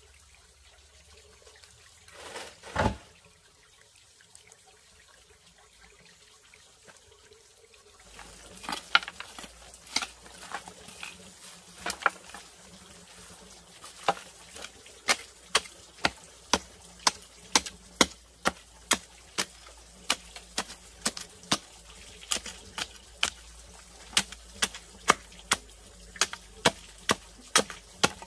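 A hand tool striking repeatedly in a steady rhythm of sharp blows, about two a second, starting about eight seconds in after a single knock near three seconds.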